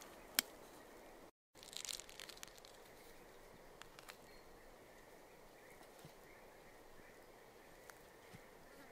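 A knife knocks once on a wooden cutting board as its blade goes through a peach. Then comes a short crackly tearing as the peach halves are twisted apart by hand. Underneath is a faint, steady outdoor insect drone.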